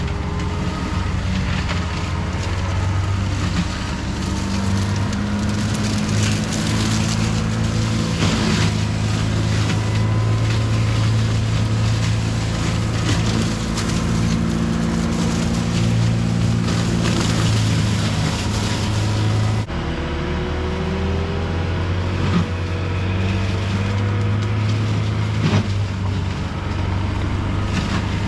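CAT 259D3 skid steer's diesel engine running steadily at high revs, driving a Gyrotrac 400 HL forestry mulching head through brush and small trees, with occasional sharp cracks as wood is ground.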